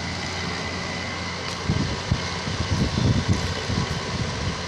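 Air-conditioner fan motor running with a steady hum. From about two seconds in, irregular low gusts buffet the microphone.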